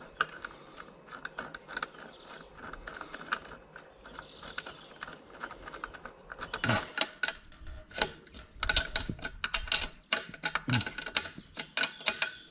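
Irregular metallic clicks and taps of a bolt and hand tools against a stainless awning bracket and unistrut rail as the bolt is started into a nut beneath it. The clicking is sparse at first and gets quicker and louder in the second half.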